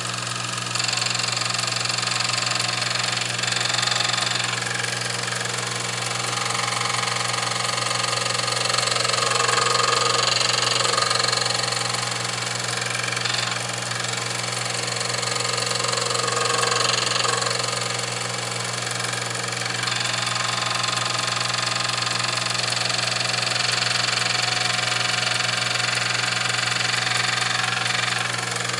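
Grinding wheel on a homemade lathe grinding attachment, running with a steady motor hum, and a hissing grind that swells and fades several times as a form-tool blank is fed against the wheel, a bit at a time, to grind its radius.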